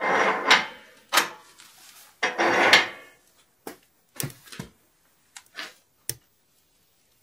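Firewood being handled and loaded into a stove-fireplace firebox: two longer clattering, scraping bursts in the first three seconds, then a few short knocks and clicks.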